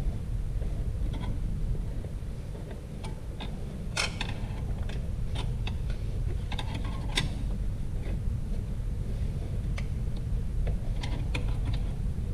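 Scattered light metallic clicks and clinks of transmission parts and hand tools being handled during an E4OD automatic transmission teardown, the sharpest about four and seven seconds in, over a steady low hum.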